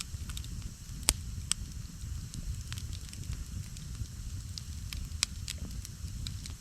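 Wood campfire burning: a low steady rumble with scattered sharp crackles and pops. The loudest pops come about a second in and again about five seconds in.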